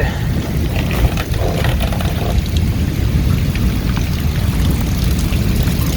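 Heavy rain pouring down in a thunderstorm: a steady hiss of rain with a constant low rumble underneath.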